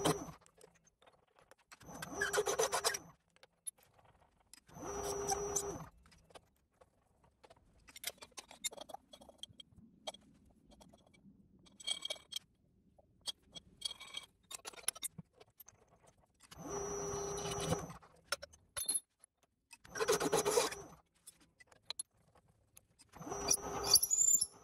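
TIG welding arc on stainless steel, struck in five short bursts of about a second each, as in tacking. Light metallic clinks and scrapes come between the bursts.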